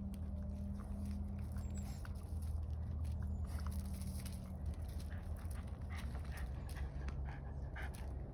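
A Shiba Inu making small mouth and nose sounds, scattered clicks and snuffles, over a steady low hum.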